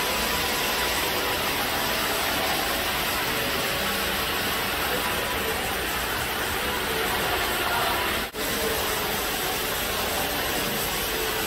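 Steady hiss of background noise, briefly cutting out about eight seconds in.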